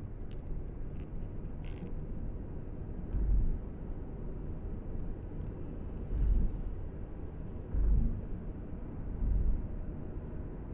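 Steady low rumble of a moving road vehicle, interrupted four times by brief, heavier low thumps.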